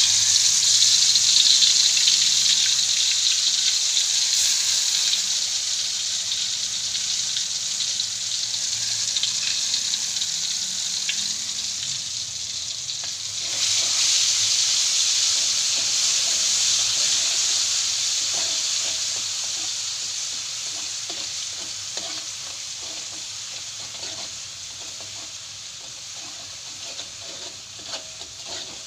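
Food sizzling in hot oil in a pan: the sizzle starts abruptly and loud, eases off, surges again about halfway through, then slowly dies down, with scattered light pops near the end.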